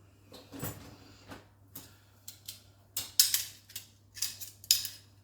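Kitchen utensils and dishes clinking and clattering as they are unloaded from a dishwasher and put away: a string of short, sharp clatters, the loudest a little past halfway and again near the end.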